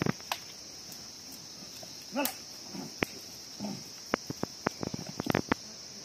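Outdoor rural soundscape: a steady high insect drone, with a few short calls in the middle and scattered sharp clicks and taps, most of them near the end.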